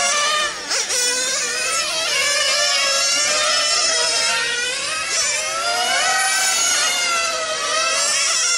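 Several 1/8-scale nitro on-road RC cars' small glow engines whining at high revs, their pitch falling and rising as they slow for the curves and accelerate out. Several engines overlap at different pitches.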